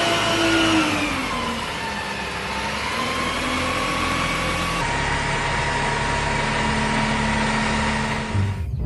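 A vehicle engine running. Its pitch falls over the first two seconds and then climbs slightly. About halfway through, a cut brings a steadier engine hum, which stops abruptly near the end.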